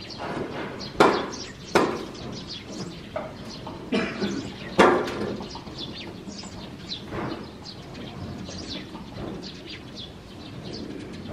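Four sharp knocks or bangs in the first five seconds, the loudest sounds here, with small birds chirping throughout.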